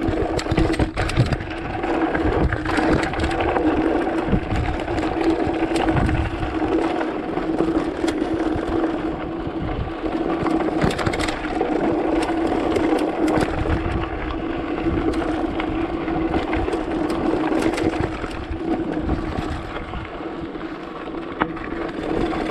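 Mountain bike riding down a rough dirt trail at speed: a steady buzz runs throughout, with frequent rattles and knocks from the bike over the rough ground.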